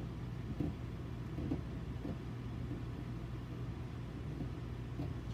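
Steady low background hum with a couple of faint clicks, probably from the power supply being handled.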